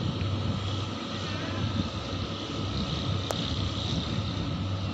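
Diesel locomotive engine idling steadily with a low, even hum. A single sharp click sounds about three seconds in.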